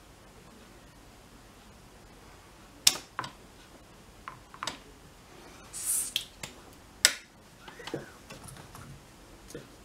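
Scattered sharp clicks and light taps of metal tools, a soldering iron and a hemostat, against a circuit board and bench during desoldering. The two loudest clicks come about three and seven seconds in, with a brief high hiss just before the second.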